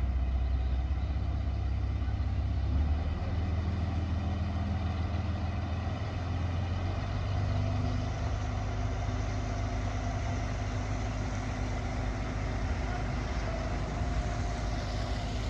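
Heavy diesel engine of earthmoving machinery running steadily under load.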